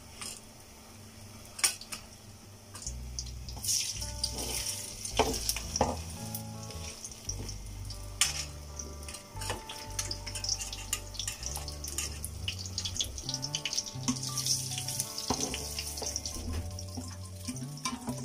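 Shell-on prawns frying in hot oil in a pan, a sizzle that grows louder as more prawns go in, with sharp spattering clicks throughout.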